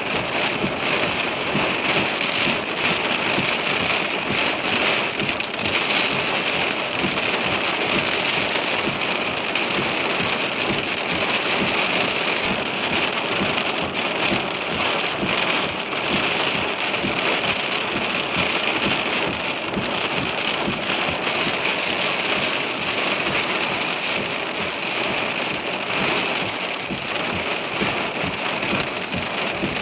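Heavy, wind-driven thunderstorm downpour: a steady, dense rush of rain falling on a surface, with countless drops ticking through it.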